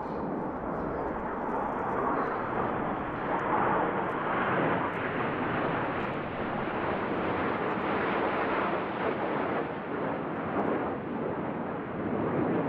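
Formation of nine BAE Hawk T1A jet trainers flying past. Their Rolls-Royce Turbomeca Adour turbofans make a steady jet noise with no distinct tones, swelling a little midway.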